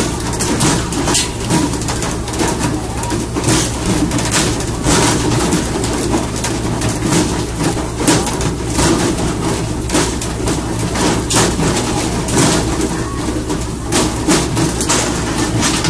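Fishing boat's engine droning steadily beneath rushing water, with frequent sharp knocks and slaps as tuna are yanked out of the sea and land on the deck.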